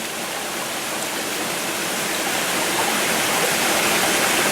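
Small mountain stream's water rushing and splashing, a steady noise that grows gradually louder.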